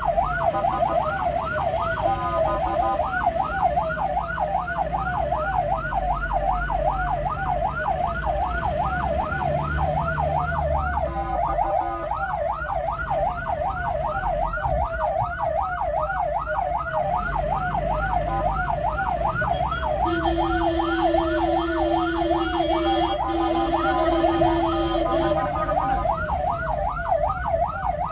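Ambulance siren on a fast yelp, sweeping up and down about three to four times a second, heard from inside the ambulance's cabin over engine and road rumble. About two-thirds of the way through, a vehicle horn sounds steadily for about five seconds, with a brief break in the middle.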